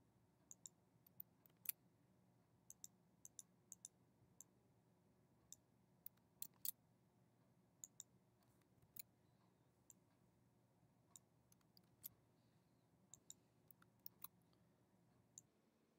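Faint, scattered clicks of a computer mouse and keyboard, about two a second at most and irregular, as spreadsheet cells are selected, copied and pasted, over a low room hum.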